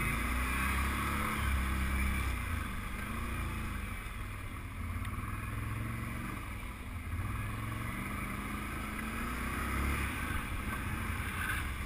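ATV engine running as the quad is ridden along a gravel trail, its pitch rising and falling every second or two with the throttle.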